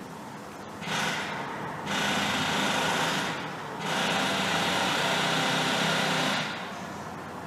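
A small motor runs in three bursts: about a second, then about a second and a half, then about two and a half seconds, each starting and stopping sharply, over a steady background hiss.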